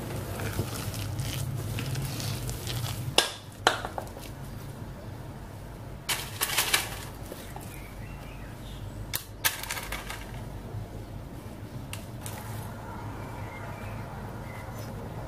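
Metal spoon stirring and scraping thick cake batter in a glass bowl, with a few sharp clinks of the spoon against the glass, over a steady low hum.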